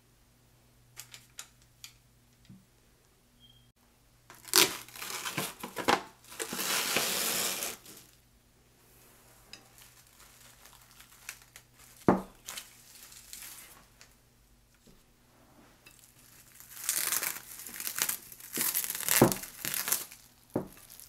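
Plastic cling wrap crinkling in two bouts: first as it is stretched over a glass baking dish, then as it is pulled off again. A single sharp knock falls between the two bouts.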